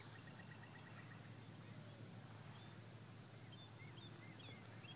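Near silence: faint outdoor ambience with a few brief, faint high chirps from birds in the second half.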